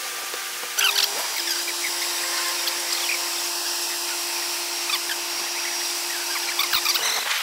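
Heavy construction machinery running with a steady whine, the sound changing abruptly about a second in, with scattered short high chirps over it.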